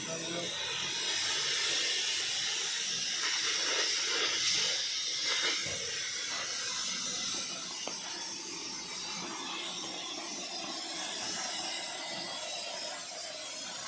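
Steady hissing noise, louder for the first half and then easing off.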